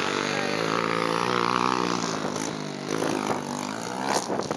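Junior motocross bikes' engines running as riders come round the dirt track, the engine note dipping and then climbing again. A few sharp crackles near the end.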